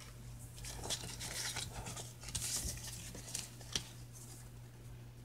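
Faint rustling and light handling noises of a jumbo cardboard trading card being moved and laid down on a play mat, with a single sharp click near the end and a steady low hum underneath.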